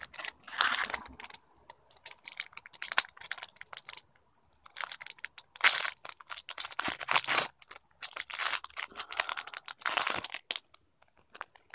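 Foil booster-pack wrapper of a trading card game being torn open and crinkled, in irregular crackly bursts that stop shortly before the end.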